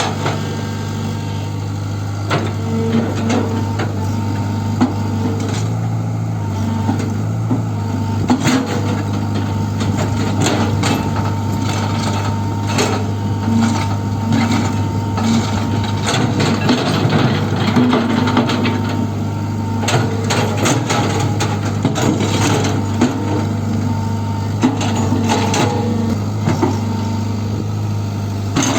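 Tata Hitachi Zaxis 120 excavator's diesel engine running steadily, its pitch shifting briefly about six to eight seconds in, with frequent sharp metallic knocks and clanks over it as the track chain is worked.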